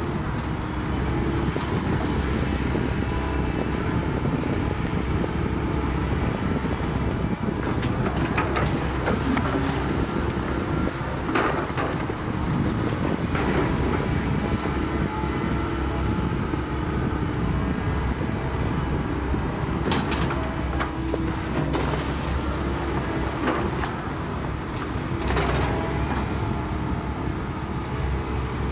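Hydraulic excavator's diesel engine running steadily while its arm works, with several sharp knocks and clanks scattered through.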